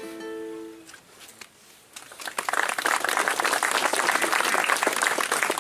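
The last acoustic guitar chord and held sung note of a folk song ring out and stop about a second in; after a short pause, an audience breaks into steady applause.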